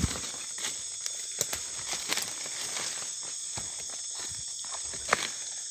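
Footsteps pushing through dry leaf litter and undergrowth, with irregular crackles of leaves and twigs and one sharper snap about five seconds in, over a steady high night insect chorus.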